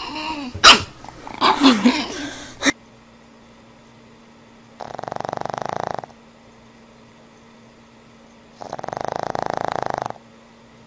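A pug puppy yipping and growling in short, high calls. Then a sleeping pug snoring: two long, rattling snores about four seconds apart.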